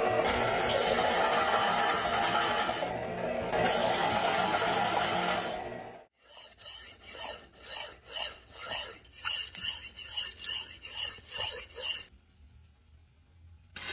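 A belt sander running steadily as the steel cutter blade is ground on its belt, stopping about six seconds in. Then the blade's edge is honed by hand with quick back-and-forth scraping strokes, about two a second, on the unglazed foot ring of a ceramic plate.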